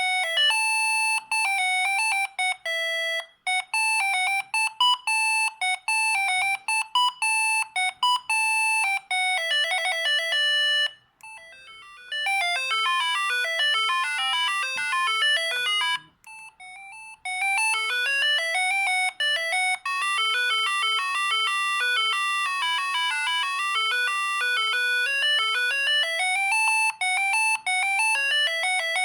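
Siemens S45 mobile phone playing its ringtone melodies as fast sequences of electronic beep notes, with short pauses about 11 and 16 seconds in where one tune gives way to the next.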